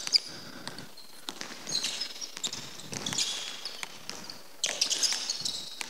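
A basketball dribbled on a hardwood court, with scattered bounces, and short high sneaker squeaks from players shuffling and cutting.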